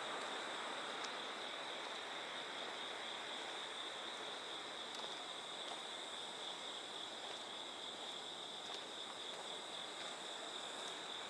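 Steady chorus of insects singing at one high pitch, over an even background hiss.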